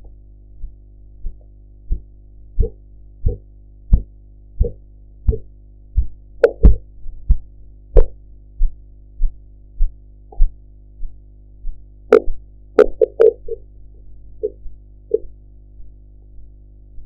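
Korotkoff sounds heard through a stethoscope as a blood pressure cuff deflates: a regular series of low thumps, about one and a half a second, faint at first, louder in the middle, then fading away near the end. The first thumps mark systolic pressure and their fading out marks diastolic. A steady low hum runs underneath, and a few sharper, louder knocks fall in around the middle.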